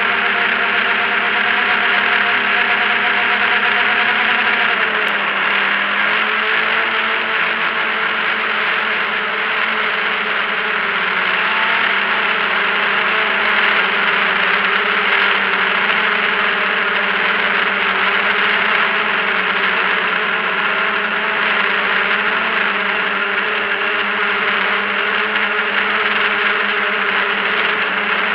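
Multicopter drone's electric motors and propellers buzzing steadily, heard close up from the drone's own camera. The pitch drops about five seconds in and then holds steady.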